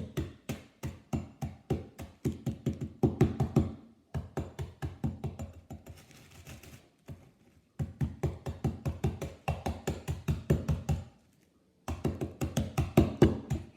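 Cookies in a plastic bag being pounded to crumbs by hand: fast, even knocks about five a second, stopping for a few seconds near the middle and briefly again near the end.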